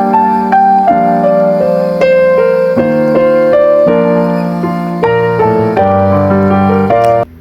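Background piano music: a slow melody over sustained chords, cutting off suddenly near the end.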